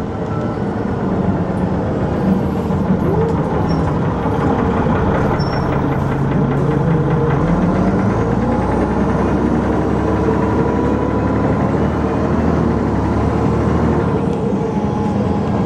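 Dennis Arrow double-decker bus engine pulling under load while the automatic gearbox holds a gear, the revs climbing. About seven or eight seconds in the gear changes and the engine settles into a steadier drone.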